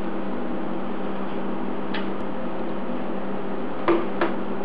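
Light clicks and knocks of plastic automotive relays on an aluminium mounting bracket being handled: one about two seconds in and two close together near the end. Under them runs a steady low hum.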